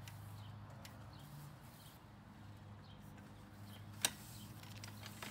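Quiet outdoor background with a steady low hum and a few faint chirps. One sharp knock about four seconds in, from the folded metal cantilever umbrella frame being carried.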